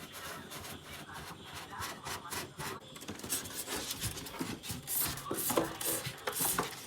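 Scratchy rubbing and scraping on a thermocol (expanded polystyrene foam) box as a hole is worked through it for the thermostat's sensor wire, in irregular strokes that grow louder and busier about halfway through.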